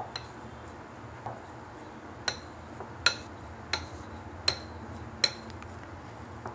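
Metal potato masher clinking against a glass mixing bowl while mashing boiled potatoes: about seven sharp clinks, roughly one every three-quarters of a second, each with a short ring.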